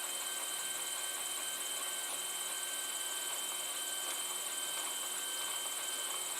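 A steady electrical hum and hiss with a couple of faint constant high tones, unchanging throughout.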